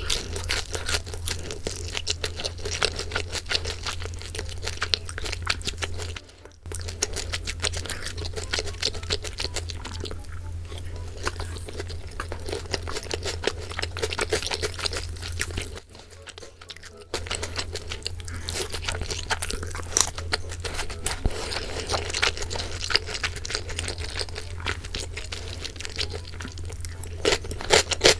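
Close-miked crunching and chewing of boneless sweet-and-spicy fried chicken: dense crisp crackles from the fried coating, with two brief breaks.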